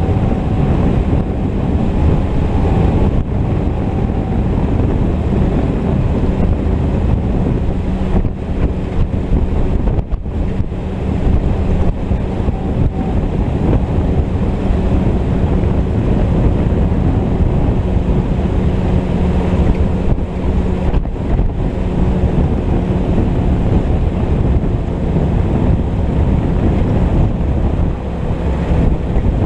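Willys M38 Jeep driving at a steady speed, its four-cylinder Go-Devil L-head engine running evenly under loud wind noise rushing over the windshield-mounted microphone.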